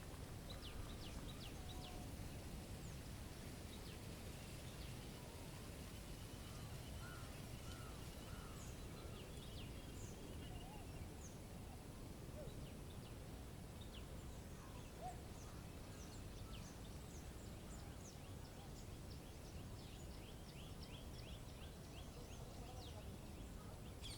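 Small birds chirping and calling at a feeder, with many short high chirps scattered throughout and thickest near the end, over a steady low rumble of wind.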